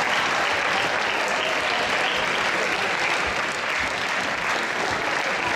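A large crowd of students applauding steadily, a dense continuous clapping that doesn't let up.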